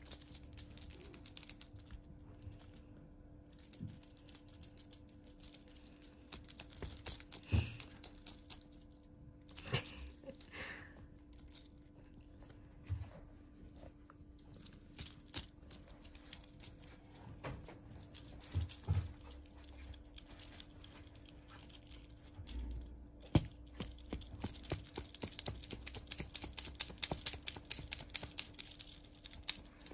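Scattered light clicks and rustling as a cat plays with a beaded feather wand toy and paws at sheer fabric and a crocheted blanket. The clicking and rustling grow denser near the end, over a faint steady hum.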